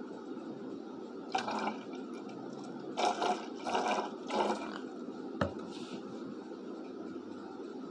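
Water poured into a glass jar of black-pepper extract in several short splashes, the water crashing piperine out of solution as white clouds. A single sharp knock comes about five and a half seconds in.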